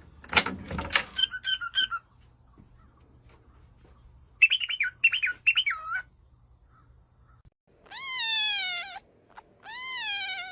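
High chirping calls, then two long cat meows near the end, each rising and then falling in pitch.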